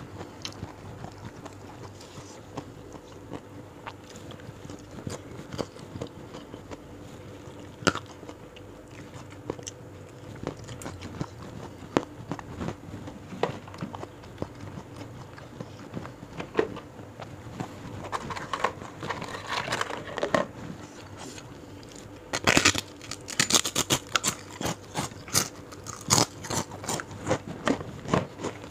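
A person eating close to a clip-on microphone: scattered wet chewing clicks at first, then, from about two thirds of the way in, a fast run of loud crunching bites.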